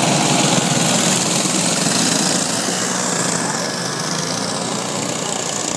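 Several small go-kart engines running as a pack of racing karts passes close by. The sound is loudest at first and fades slowly as the karts move away.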